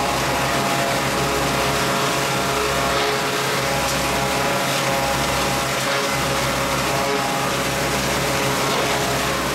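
A 1909 American Woodworking Machines No. 77 planer and matcher running steadily on its flat belts and pulleys. It makes a constant mechanical hum with a few held tones, and a low throb that swells and fades about once a second.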